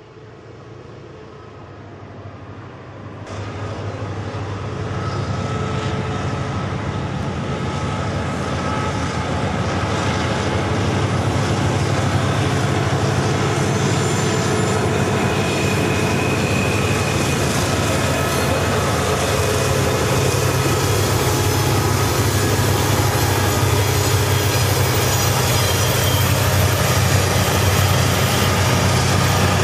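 HO-scale model freight train running past on the layout: a steady rumble of wheels on track with a low hum, fading in over the first few seconds.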